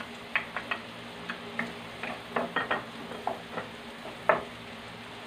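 Onions and garlic frying with a light sizzle in a wok while a spatula scrapes and taps against the pan in irregular strokes, the loudest one about four seconds in.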